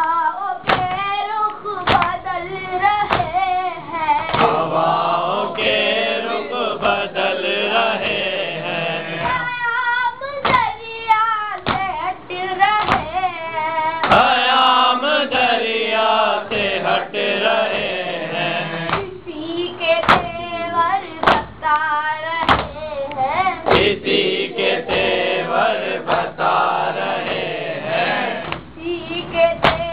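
A boy reciting an Urdu noha in a high chanting voice, with other voices joining in, over a steady beat of sharp hand slaps: the chest-beating (matam) that keeps time with a noha.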